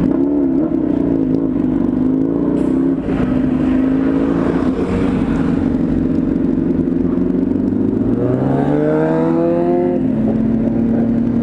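Motorcycle engine running under way, heard from the rider's seat, its pitch rising and falling with the throttle. From about eight seconds in the revs climb steeply, then settle.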